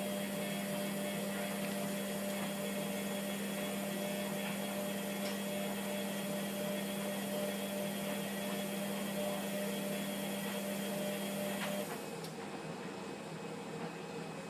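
Hotpoint Aquarius WMF720P washing machine running with a steady hum that cuts off suddenly about twelve seconds in, leaving a quieter background with a few faint ticks.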